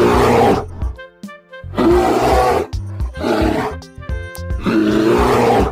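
Hippopotamus calling: four loud, rough roaring calls about a second each, the first at the start, then about two and three seconds in, and the last near the end, over background music with a steady beat.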